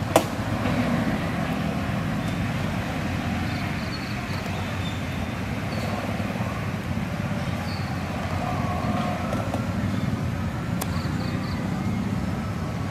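A steady outdoor background din like distant road traffic, with one sharp click just after the start.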